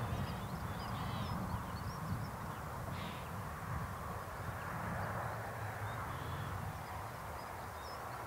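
Countryside ambience: a steady low rumble of wind on the microphone, with small birds chirping now and then and a couple of short, harsh bird calls early on.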